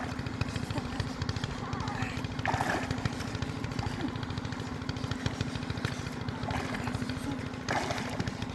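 Small boat engine running steadily, its rapid firing pulses and a steady hum going without change.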